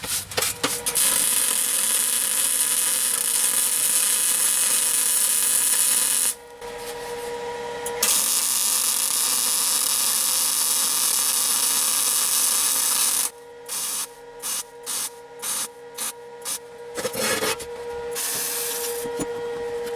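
Flux-core MIG welding: two long runs of steady crackling hiss with a pause between them, then a series of short stop-start bursts, as from tack or stitch welds, and a softer run near the end.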